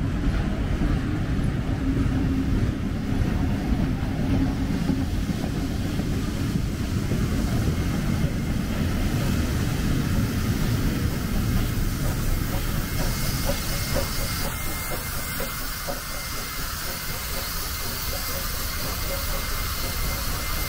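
Steam-hauled train passing slowly: a steady rumble of wheels on the rails, with scattered clicks. From about 13 seconds in, a hiss of steam from NSW 59-class 2-8-2 steam locomotive 5917 grows louder over the rumble.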